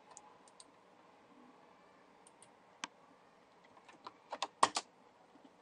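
Scattered light clicks of computer keys and a mouse as text is selected and copied, with a quick run of louder clicks about four to five seconds in.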